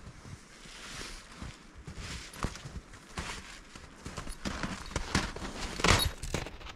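Crunching footsteps in snow that grow louder and closer about two-thirds of the way in as a dog walks up against the camera, with the loudest crunch near the end. Earlier there is quieter rustling and snapping of spruce boughs as a rabbit snare is set among them.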